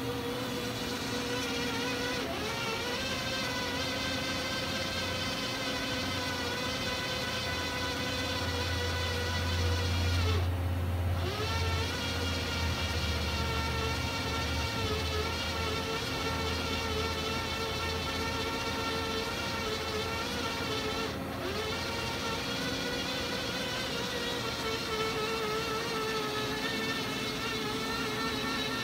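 Doosan DB-130C CNC horizontal boring mill running: a steady electric whine of several layered tones from its drive motors over a low hum. The whine breaks off briefly twice, about ten and twenty-one seconds in, and the low hum swells for a few seconds near the middle.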